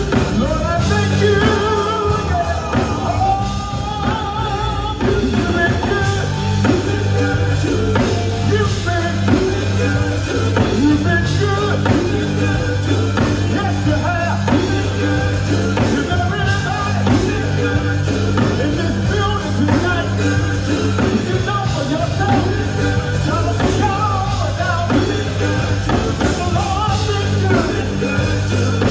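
Live gospel band playing an upbeat number: drum kit, bass and a wavering vocal or lead melody.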